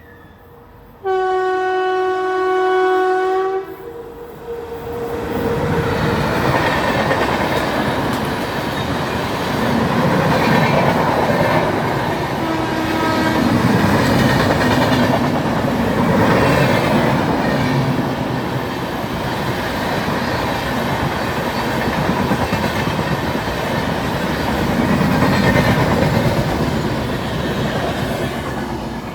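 Indian super fast train's horn sounding one steady blast of about two and a half seconds, then the train passing close by with a loud, continuous rumble and the clatter of wheels over rail joints.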